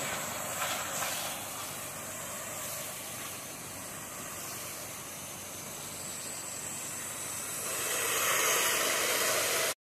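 Pressure washer wand spraying a wide fan of water onto painted wood house siding: a steady hiss of spray, louder about eight seconds in.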